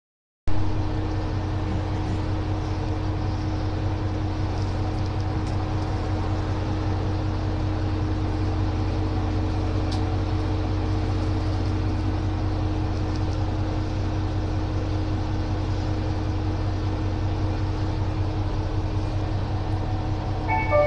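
Kanto Railway Joso Line diesel railcar idling at a station stop: a steady low engine drone with a constant hum over it.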